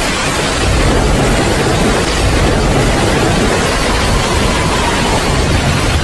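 Heavy rain falling steadily: a dense, even hiss with a low rumble underneath.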